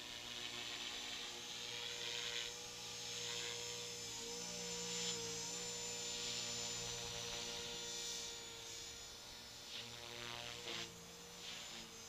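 Electric 450-size RC helicopter (T-Rex 450 Pro flybarless clone) in flight: a steady whine from its brushless motor and gears over the hum of its rotor, the pitch wavering slightly as it manoeuvres. It gets somewhat quieter after about eight seconds.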